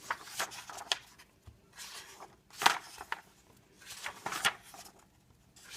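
A paperback coloring book being handled: a few separate soft knocks and paper rustles as it is moved and opened, the loudest about two and a half seconds in and again near four and a half seconds.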